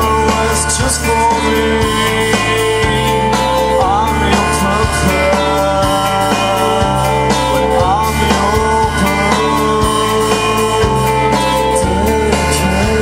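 Music: a band-style track with a bass line that steps to a new note every second or two under sustained melody notes.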